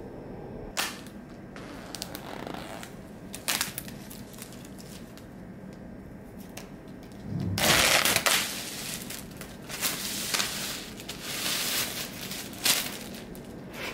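Plastic shrink-wrap being torn and peeled off a new MacBook Pro box, crinkling and crackling. There are a few short snaps first, then a loud burst of crinkling about seven and a half seconds in, with more rustling after it.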